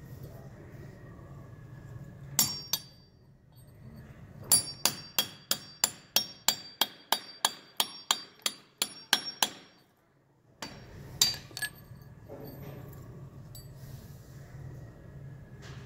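Hammer tapping a steel chisel against a cast aluminum sculpture, knocking it out of its mould. There is a single strike, then a quick run of about sixteen ringing metallic taps at roughly three a second, and one more strike near the end.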